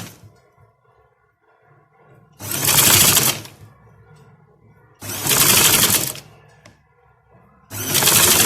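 Sewing machine stitching in short runs of about a second each, three times, with pauses between.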